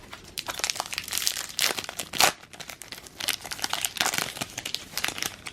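Trading-card pack wrapper crinkling and tearing as it is ripped open, a dense run of crackles with one sharper, louder crackle about two seconds in.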